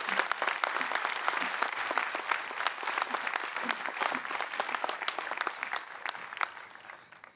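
Audience clapping as the commencement speaker is welcomed to the podium, dying away near the end.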